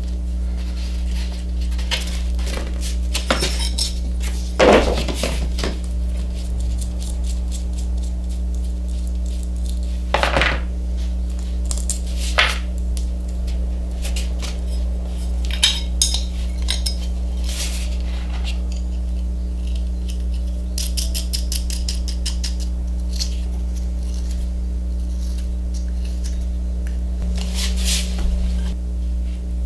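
Scattered metal clinks, taps and light knocks as a switch is handled and fitted into a hole in an old bench grinder's metal housing, over a steady low hum.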